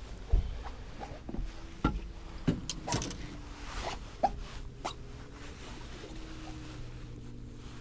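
Scattered knocks and taps as a sea trout is handled in a rubber-mesh landing net on a fiberglass boat deck, about seven of them over the first five seconds. A faint steady hum comes in about halfway through.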